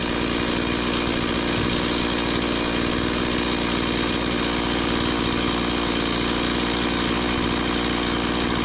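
Chainsaw engine running steadily at one even speed, without revving or cutting.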